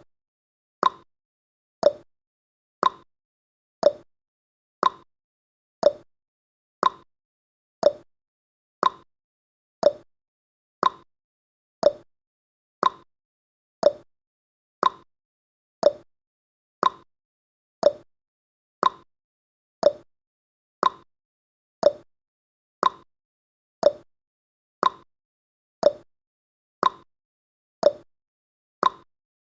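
Countdown timer sound effect: a short clock-like tick once a second, each one dying away quickly.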